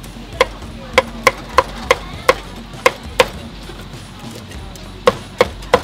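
Meat cleaver chopping grilled pork belly on a thick round wooden chopping block. There are eight sharp chops at about three a second, a pause of nearly two seconds, then three more near the end, each with a brief metallic ring.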